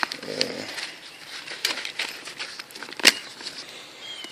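Gear being handled and pulled from a nylon bag: fabric rustling with scattered small clicks, and one sharp click about three seconds in.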